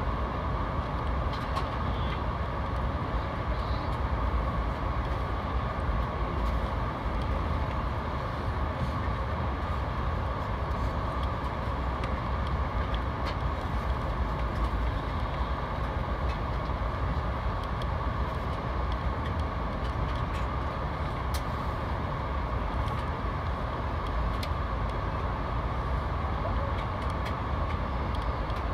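Steady ride noise inside a VIA Rail passenger coach moving at speed: an even rumble of the train running on the rails.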